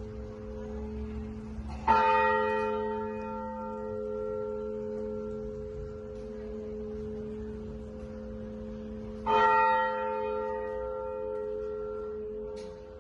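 A large church bell tolling: two single strikes about seven seconds apart, each ringing on with a long, slowly fading hum.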